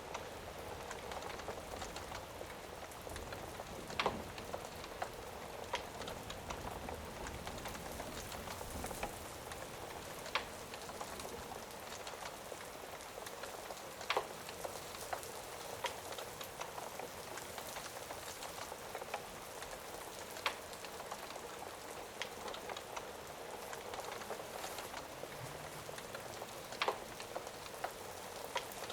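Steady rain with a crackling fire, giving about five sharp pops spread a few seconds apart.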